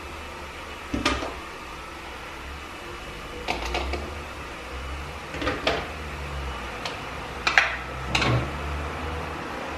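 Clicks and knocks from handling a plastic food chopper and its container of chopped carrot, about eight separate sharp sounds spread over several seconds, over a low steady hum.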